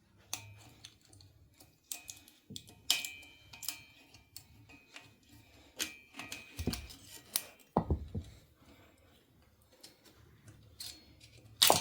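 Scattered metal clinks and taps, some ringing briefly, as a hand tool works a damaged bearing shell loose from the connecting-rod bearing area of a 2.2 L Ecotec engine. Two duller knocks come about two thirds of the way in, and a sharp clack comes at the end.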